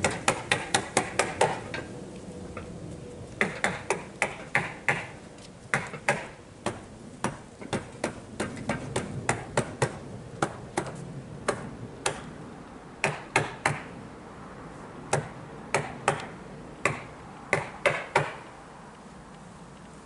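Hammer tacker striking again and again as it staples roofing underlayment onto the wooden roof boards, with hammer blows mixed in: sharp smacks in quick runs and single strikes, with short pauses between.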